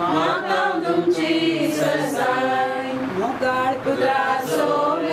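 Church choir singing a hymn, voices holding long notes.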